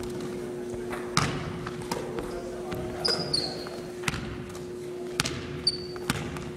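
Basketball bouncing and thudding on a hardwood gym floor at an uneven pace, with short high sneaker squeaks about three seconds in and again near the end, over a steady hum.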